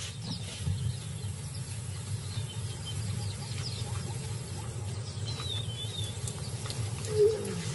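Quiet outdoor ambience: a steady low rumble with a few faint bird chirps about five seconds in, and a short louder low call near the end.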